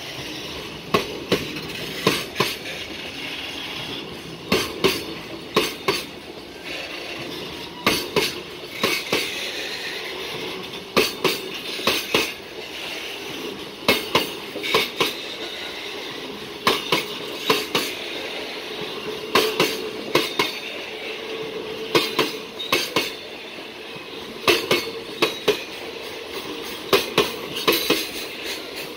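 A freight train's container wagons rolling past close by. Their wheels clack over the rail joints in repeated groups of two to four sharp clacks every few seconds, one group for each pair of bogies, over a steady rolling rumble with a faint metallic ring.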